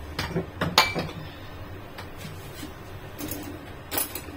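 A handful of light knocks and clinks of kitchen containers being handled on a countertop, the sharpest a short ringing clink about a second in and another knock near the end.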